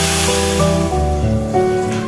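Background music with slow, held notes, over a steady hiss of noise that fades out about a second and a half in.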